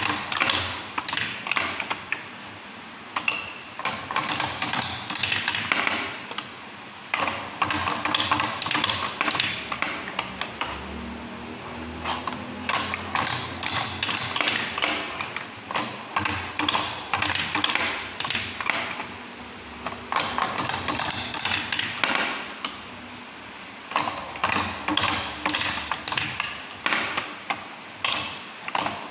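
Marbles rolling and clattering through a balsa-wood marble run's wheel pockets and runways: rapid clicking and tapping in spells of a few seconds, with short lulls between them.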